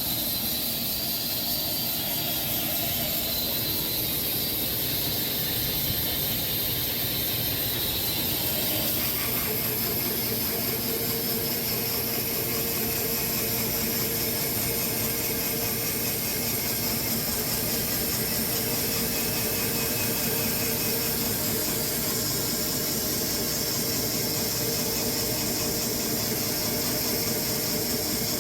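Sawmill running steadily, its blade cutting through a Bastogne walnut log; about nine seconds in, the sound changes and a steady hum joins the noise.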